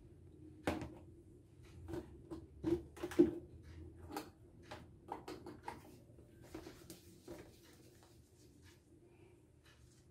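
A hand utensil stirring flour into cake batter in a plastic mixing bowl, knocking and tapping against the bowl at irregular moments, with two louder knocks about a second in and about three seconds in. The taps thin out and stop after about seven seconds.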